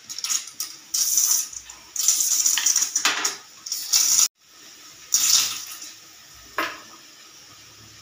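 Aluminium pressure cooker on a gas flame venting steam from its weight valve in loud, irregular hissing spurts, sputtering as frothy liquid from the food is forced out around the vent.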